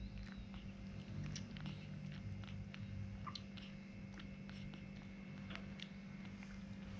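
A baby monkey sucking milk from a feeding bottle: faint, irregular little clicks and smacks of suckling at the nipple, over a steady low hum.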